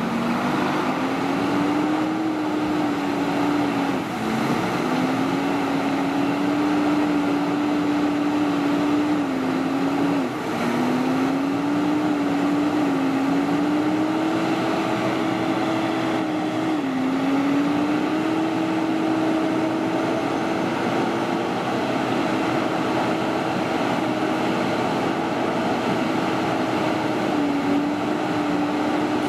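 Diesel engine of a Mercedes-Benz heavy-haul tractor unit running under load as it creeps forward with a heavy tank load, its note climbing slowly and dropping back sharply several times over a steady wash of running noise.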